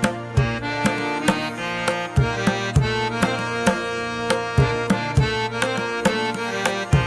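Background music: Indian instrumental with tabla strokes keeping a steady beat under a sustained melody.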